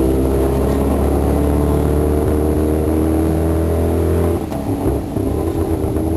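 Tuk-tuk engine running steadily, heard from on board while riding; about four seconds in its note drops and turns uneven.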